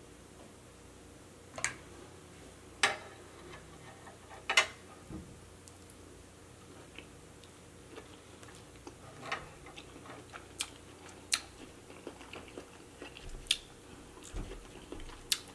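Close-miked eating sounds: scattered sharp, wet mouth clicks and smacks as cheese-sauce-covered king crab leg meat is bitten and chewed.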